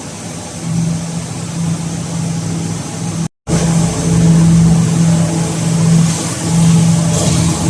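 Hydraulic cotton baler machinery running with a steady low hum and mechanical noise. The sound cuts out completely for a moment about a third of the way in, then resumes.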